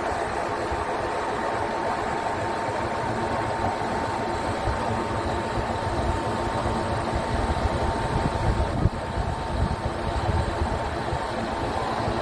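Scania R truck's engine running to drive the hydraulics of its truck-mounted knuckle-boom loader crane as the boom moves, a steady whine over a low, uneven rumble. There is a brief louder bump about nine seconds in.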